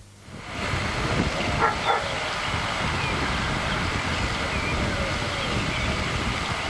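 Outdoor ambience fading in to a steady rushing noise, with dogs barking, twice about one and a half seconds in, and a few faint calls after.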